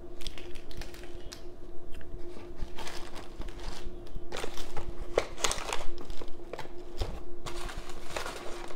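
Hands rummaging through a cardboard box, with irregular crinkling of plastic wrap and rustling of tissue paper and scattered light knocks as packages are moved. A faint steady hum runs underneath.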